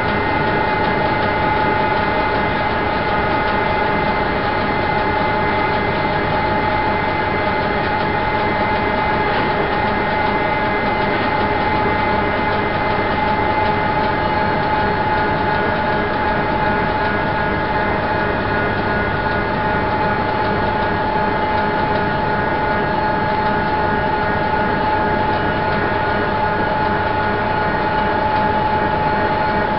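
Steady, unchanging drone of heavy machinery with a constant high whine running over it.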